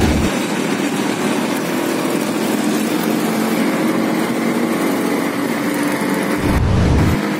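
Small vehicle engine running with road noise, heard from inside the moving vehicle. Wind buffets the microphone briefly at the start and again near the end.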